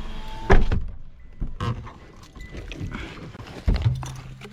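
A few sharp knocks and thuds, the loudest about half a second in.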